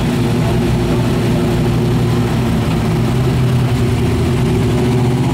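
Square-body pickup truck's engine running steadily at low revs with a deep, even rumble, as the truck sits or creeps along a dirt pulling track.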